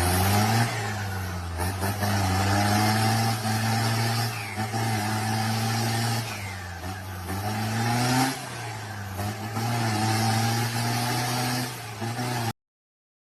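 An engine running and revving, its pitch rising and falling every few seconds under changing load. It cuts off suddenly about a second before the end.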